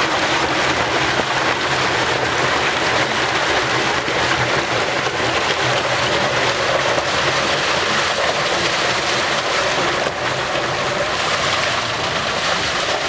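Water gushing steadily out of a fish pond's central drain into a concrete channel, a loud continuous rush as the drain is opened to flush settled waste off the pond bottom.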